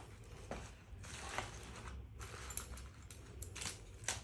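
Faint rustling and a few light clicks and knocks as a parcel and its packaging are handled.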